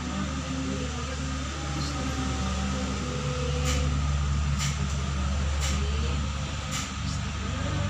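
A steady low mechanical hum, like a motor running, that swells in the middle, with four faint clicks about a second apart.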